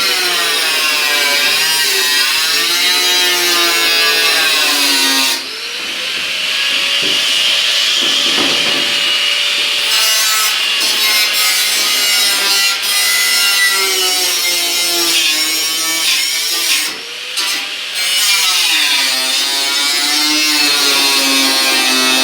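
Small angle grinder grinding off the bottom edge of a 1964 Impala trunk lid to free the outer skin. The motor's whine sags and rises as it bites into the sheet steel, easing off briefly twice.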